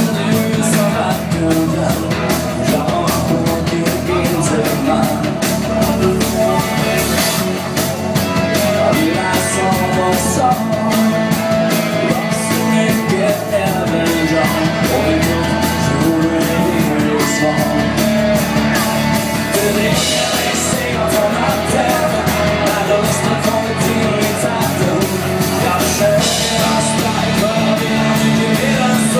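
Live band playing an up-tempo pop-rock song over a PA: electric guitars, keyboard and a steady drum beat, with a singer.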